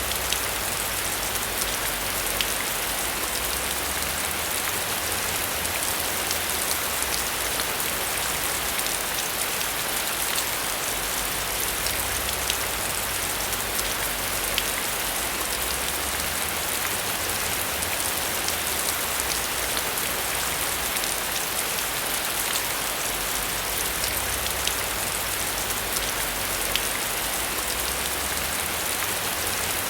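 Heavy rain falling steadily: a dense hiss dotted with many sharp hits of individual drops, with a low rumble that swells and fades underneath.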